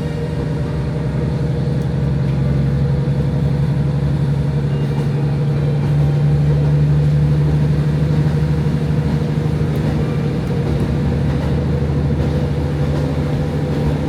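KiHa 40 diesel railcar running along the line, heard from inside the car: the steady drone of its diesel engine with wheel and rail noise.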